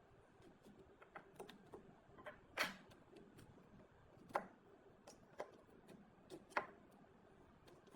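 Sparse light clicks and taps of small hard objects being handled, with three sharper knocks spaced about two seconds apart.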